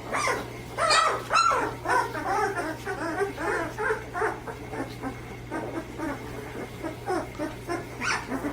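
Several chocolate Labrador puppies whimpering and yipping, many short overlapping cries, with a few sharper high yelps near the start and near the end.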